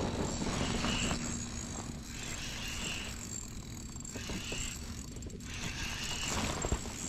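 A small mechanism whirring in four short spells about a second and a half apart, over a steady low hum.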